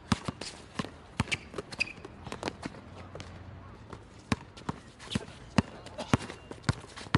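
Basketball dribbled on an outdoor court: sharp, irregular bounces, several a second at first, then slower and more evenly spaced after about four seconds.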